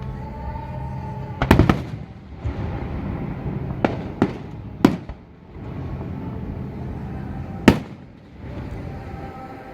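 Aerial fireworks bursting: about five sharp bangs spread over several seconds, the loudest near the end, over a steady low background rumble.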